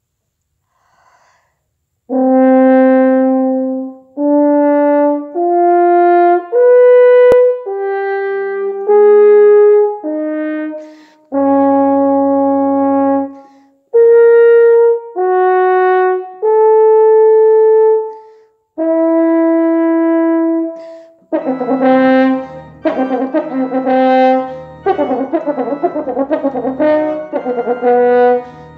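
French horn playing a slow, solo melody of separate sustained notes with short breaks, beginning about two seconds in. From about three-quarters of the way through, the horn's notes come quicker and are joined by lower sustained chords from the organ.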